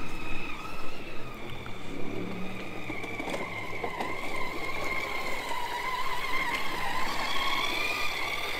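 Whine of a child's battery-powered ride-on toy quad bike, its electric motor and gearbox running as it drives, the pitch wavering slightly.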